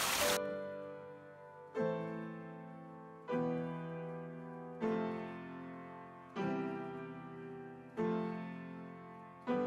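Background piano music: slow, sustained chords struck about every second and a half, each decaying before the next. Water splashing over rocks cuts off abruptly within the first half second.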